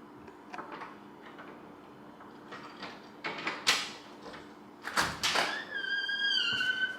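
A door being moved: scattered clatters, a louder bang about five seconds in, then a long squeak that glides slightly down in pitch.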